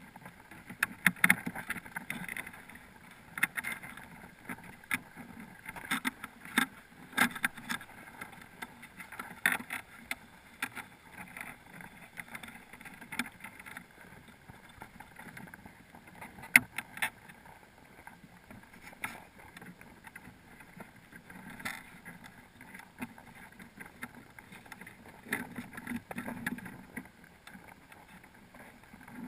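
Irregular clicks and knocks of crabs crawling and scraping their shells and legs against a GoPro's underwater housing inside a crab pot, over a steady muffled rumble of water.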